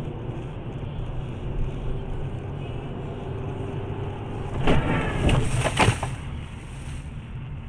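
Steady engine and road noise of a car driving in traffic, heard from inside the cabin. About five seconds in, a louder stretch of several sharp knocks lasts for about a second and a half.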